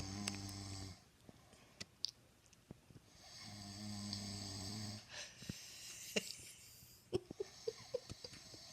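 A man snoring: a long, low, buzzing snore about every four and a half seconds, with small clicks and short squeaky sounds in the breaths between.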